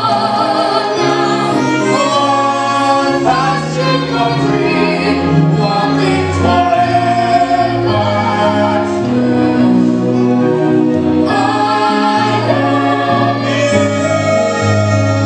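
A large cast singing together in chorus, with a live pit band accompanying, in sustained, steady musical-theatre phrases.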